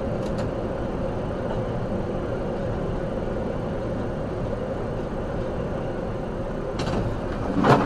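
Steady road and engine noise of a car at highway speed, heard inside the cabin, with a faint steady hum. Near the end the noise swells and loud sharp knocks begin as the car starts to crash.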